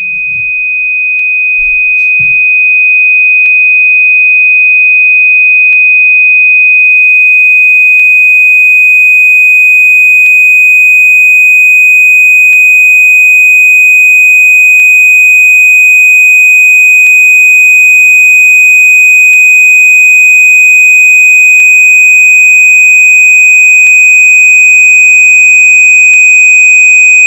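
A loud, steady, high-pitched electronic sine tone held on one pitch. It swells up over the first few seconds, with faint ticks about every two seconds and a fainter, higher tone joining about six seconds in.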